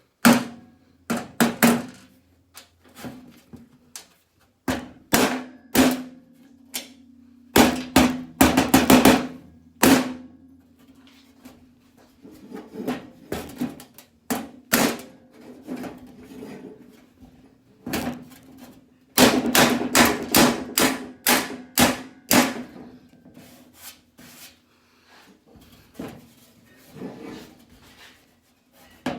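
Hammer blows on a sheet-steel panel, struck in irregular runs of quick blows, the quickest about four a second, with short pauses between; the steel rings with a low steady tone after the strikes.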